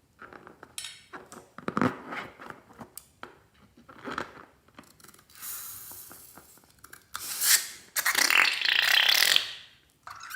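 Slime and a balloon being handled: a run of irregular wet squelching, fart-like noises, then a loud rushing hiss from about seven seconds in that stops suddenly near the end.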